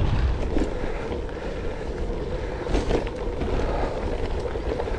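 Wind rumbling on an action camera's microphone as a gravel bike rolls along a trail, with a steady hum from the bike and a few light knocks.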